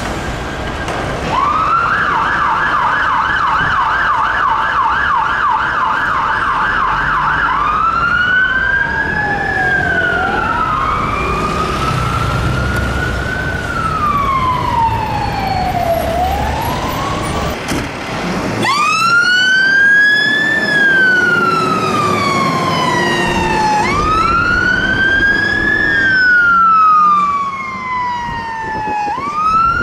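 UK fire engine sirens on an emergency response: first a fast yelp, warbling about three or four times a second, then a slow rising-and-falling wail with a second wail overlapping it. About 18 s in, a different fire engine's wail takes over, rising quickly and falling slowly and repeating about every five seconds.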